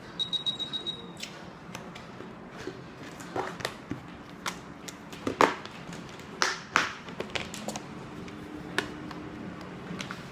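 Plastic hard-shell carry case being handled and opened: scattered plastic clicks and knocks, the loudest a sharp snap about five and a half seconds in and two more about a second later as the latches are undone.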